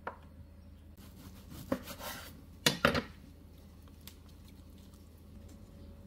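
Kitchen handling sounds as cabbage rolls are packed into a clear plastic lunch container next to a knife and wooden cutting board: a few sharp knocks and clatters, with a short rustle in the first half and the loudest, a close pair of knocks, about three seconds in.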